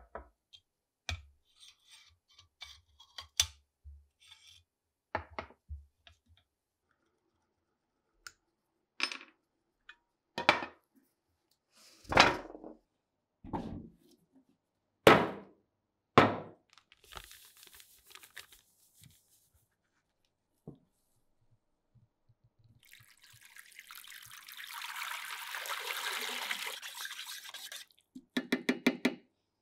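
Rusty steel airgun parts clinking and knocking as they are set down one by one on a work surface, a dozen or so separate knocks. Near the end comes about five seconds of steady liquid hiss from the ultrasonic cleaner's tank, then a quick metallic rattle.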